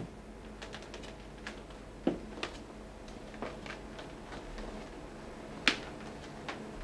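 Footsteps on a wooden floor, irregular knocks and clicks. The loudest are a dull knock about two seconds in and a sharp click near six seconds.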